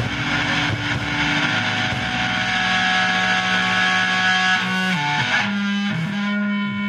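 Live rock band playing loud, distorted electric guitars through effects. About five seconds in, the dense playing drops away to one held guitar note ringing on.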